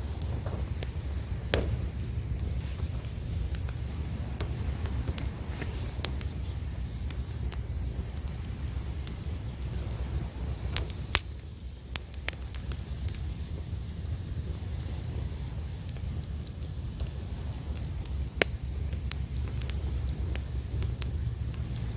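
Wood fire crackling, with scattered sharp pops from the burning firewood and a few louder ones, over a steady low rumble of surf.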